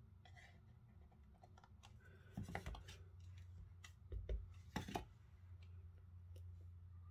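Faint clicks and light taps of a clear stamp on an acrylic block being inked on an ink pad and handled on a craft mat, with a few louder knocks in the middle. A low steady hum runs underneath.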